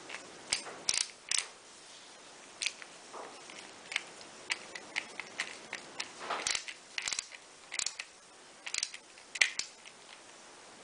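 Screwdriver tightening a terminal screw in a plastic mains plug: a scattered series of small irregular clicks and scrapes as the blade turns in the screw head and the plug body shifts in the hand.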